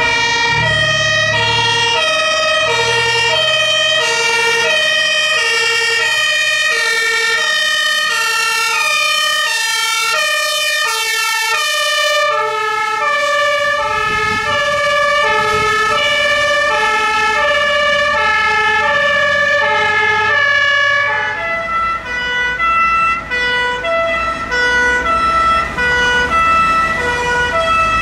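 German fire engines' two-tone sirens (Martinshorn), several sounding at once and out of step, each switching back and forth between a high and a low note, with a truck engine rumbling underneath. The mix of sirens changes abruptly at about 12 seconds and again about 21 seconds in.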